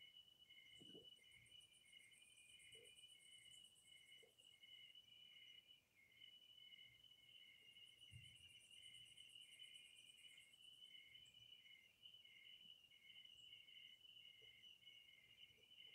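Night insects, crickets, chirping faintly: one steady high trill, a second call repeating in short regular chirps, and a higher buzzing trill that comes in twice. Faint soft low thumps about a second in and about eight seconds in.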